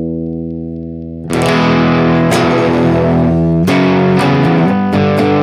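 Danelectro electric guitar through a breadboarded TL071 op-amp boost turned up into clipping, with a speaker-cabinet simulator. A distorted chord rings and fades, then fresh chords are struck about a second in and again near four seconds, each left to ring.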